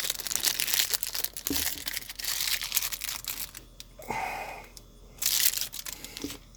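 Plastic packaging crinkling and tearing as a small item is unwrapped by hand, a dense rustle for the first few seconds, then a few short separate crackles.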